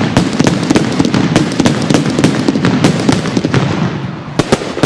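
Fireworks going off in a dense, rapid run of bangs and crackles, with two sharper bangs near the end.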